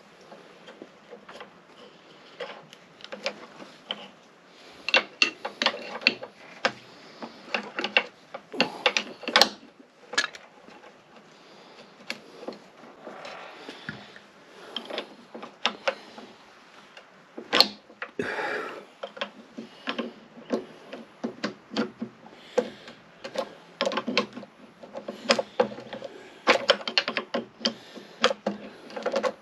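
Irregular clicks, clinks and knocks of hand tools and metal parts being handled while hydraulic hoses are fitted on a skid steer, with a couple of short scraping sounds.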